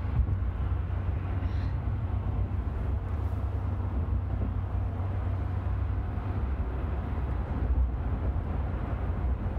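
Steady low rumble of a car moving at highway speed, heard from inside the cabin: tyre and engine noise with no sudden changes.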